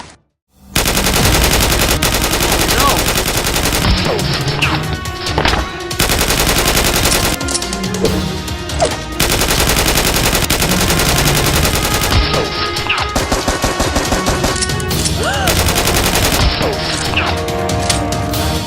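Rapid automatic gunfire sound effects, long dense bursts almost without pause, starting after a brief silence.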